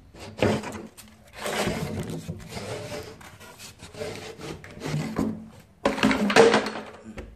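Scraping, rubbing and knocking of wood and metal as the circular saw mounted under a homemade wooden saw table is handled and tilted to set its bevel angle; the saw motor is not running. The sound comes in irregular bursts, loudest about a second and a half in and again near the end.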